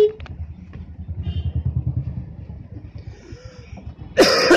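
Road traffic heard from inside a moving car: a low engine and road rumble that swells for a second or so, then a loud, harsh burst of noise about four seconds in.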